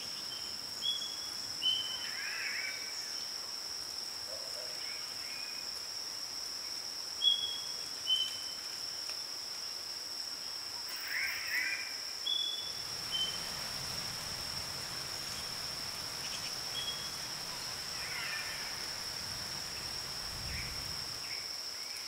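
Forest ambience: a steady high-pitched insect drone with short bird chirps and whistles scattered through it, and a faint low rumble coming in about halfway.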